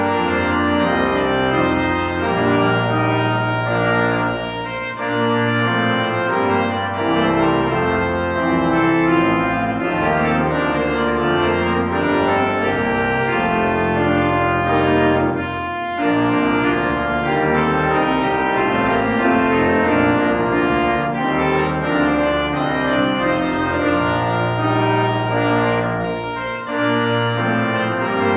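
Church organ playing slow, sustained chords over low pedal bass notes, with brief breaks between phrases about 4, 16 and 26 seconds in.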